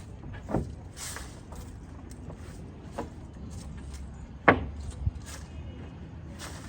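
A few scattered knocks, the loudest about four and a half seconds in, over a steady low rumble.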